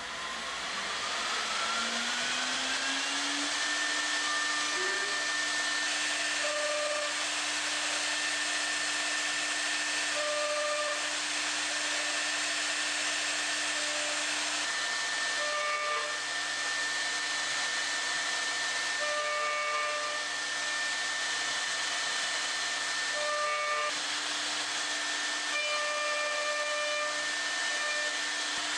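Leehyun multi-wood machine's vertical spindle motor spinning up with a rising whine over the first few seconds, then running steadily at speed while its straight bit cuts a slot into the end of a wooden board. Short higher tones come and go every few seconds over the steady cutting noise.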